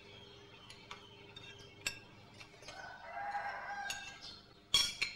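A rooster crows once, a call of about a second and a half, with faint clinks of dishes around it. A sharp knock comes near the end, louder than the crow.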